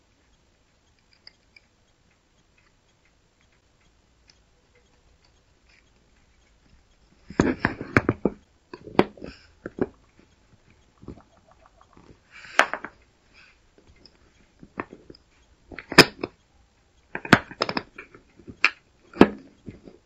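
Quiet for the first several seconds, then a string of irregular sharp clicks and knocks from handling 18650 cells, metal tweezers and a wooden battery holder.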